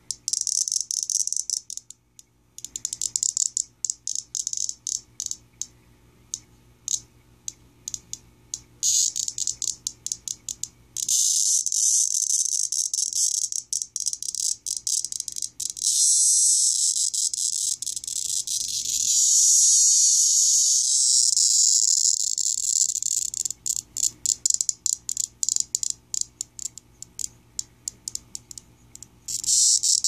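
Male cicada held in the hand giving its distress call: a high, rasping buzz that comes in stuttering pulses and short bursts, then runs on unbroken for about twelve seconds in the middle before breaking back into pulses.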